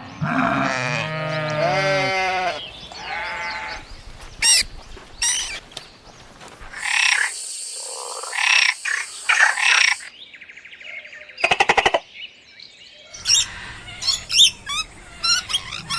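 A string of different animal calls cut one after another. It opens with a drawn-out pitched call, then there are short high chirps, a harsher call, a rapid pulsing burst about eleven seconds in, and more chirps near the end.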